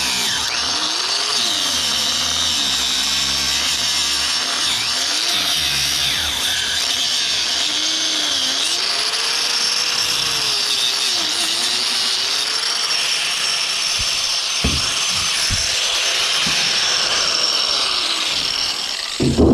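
Power tool cutting into a heavy copper power cable, running loud and steady with its motor pitch rising and falling as it labours under load.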